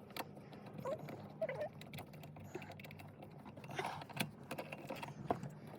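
Scattered light clicks and taps of tools and car interior parts being handled, with a faint steady low hum underneath.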